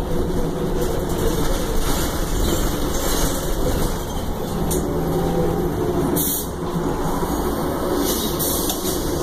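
Cabin noise inside a 2009 Orion VII transit bus under way: steady engine and road rumble, with a few short clicks or rattles from the interior fittings.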